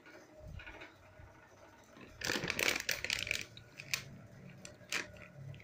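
Handling noise as a graphics card is moved about in its packaging: a burst of rustling about two seconds in, then two sharp clicks.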